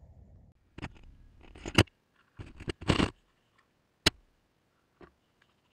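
A string of sharp clicks and scrapes from hands working a model rocket on its launch pad and rod, about six separate sounds with gaps between them.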